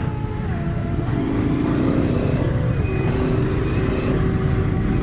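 Motorcycle engine running at low speed through congested traffic, its pitch rising and falling, over a steady low rumble of road traffic and wind.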